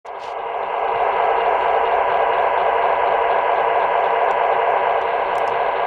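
Model MTH F3 diesel locomotive's onboard sound system idling through its small speaker: a steady hissy engine rumble that fades in over the first second.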